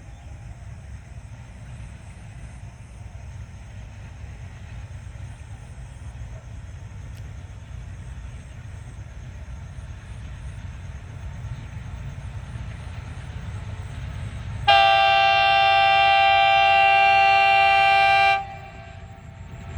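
Train rumbling steadily and growing slowly louder, then one long train horn blast of about three and a half seconds that stops abruptly, with the rumble continuing after it.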